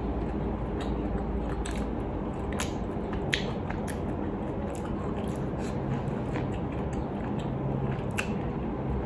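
Close-up chewing of grilled tiger shrimp meat, with scattered short wet mouth clicks over a steady low background noise.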